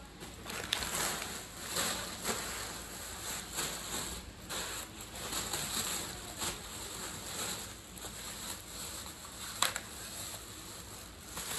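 Plastic grocery bags rustling and crinkling in irregular bursts as they are handled, with one sharp click near the end.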